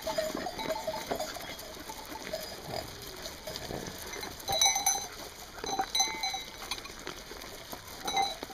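East Friesian dairy sheep eating shelled corn and grain from a wooden trough, with steady crunching and small knocks of muzzles in the feed. A few short metallic clinks ring out about four and a half, six and eight seconds in.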